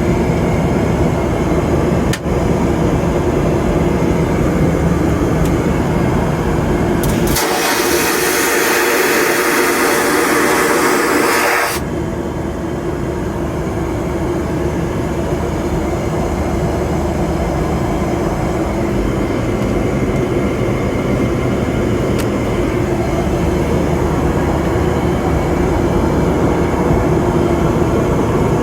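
Boeing 737 vacuum toilet flushing: a sudden loud hissing whoosh that lasts about four and a half seconds and cuts off sharply, over the steady drone of the airliner in flight. A single click sounds about two seconds in.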